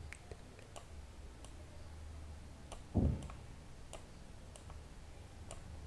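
Scattered single clicks of a computer mouse, about ten in all at an uneven pace, over a faint steady low hum. One brief louder low sound comes about three seconds in.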